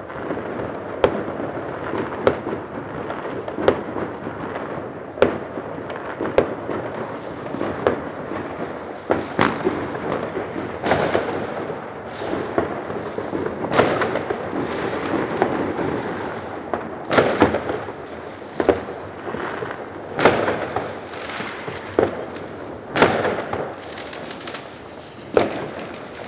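New Year's Eve fireworks and firecrackers going off: a continuous crackle with sharp bangs at uneven gaps of about one to two seconds, the loudest few in the second half.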